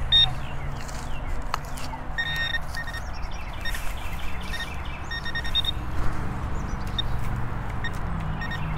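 Handheld metal-detecting pinpointer beeping in short bursts of rapid pulses as it is worked through the dug soil, signalling a metal target close by. Under it runs a low steady hum.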